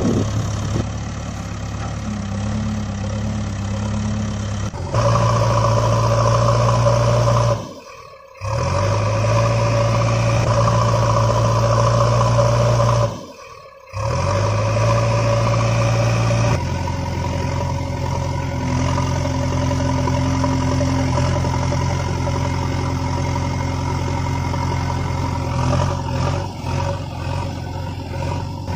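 Engine sound effect of a heavy vehicle running steadily, laid over the toy footage. It changes abruptly in pitch and level several times and fades briefly twice, about eight and thirteen seconds in.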